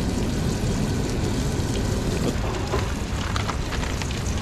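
Steady low rumble with the hiss of a portable gas stove burner and a steak sizzling in the pan. From about halfway, crinkling of a plastic food package being handled.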